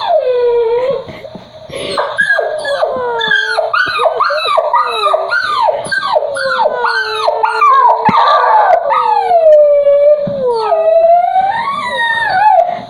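Puppy crying: a rapid series of short, high whimpers, each falling in pitch, giving way about halfway through to longer, drawn-out whining howls.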